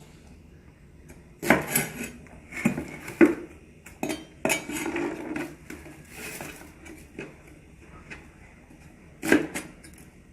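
Kitchen utensils and dishes clattering: a handful of irregular knocks and clinks, with a longer scraping rustle around the middle.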